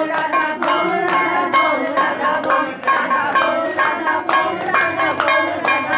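Music: a song with a singing voice over a steady beat of bell-like struck notes.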